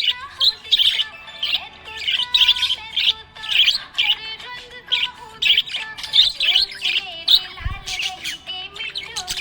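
Small pet parrots chirping: quick, bright chirps a few times a second, with a lower wavering warble underneath.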